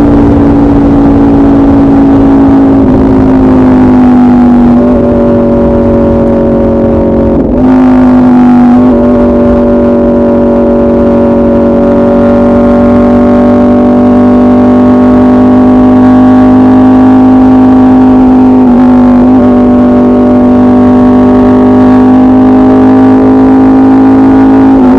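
Aprilia RSV4 RF's V4 engine through an SC Project CRT exhaust with the catalytic converter removed, running loud at high, fairly steady revs. Its note dips slightly early on and breaks briefly about seven and nineteen seconds in, as between gears.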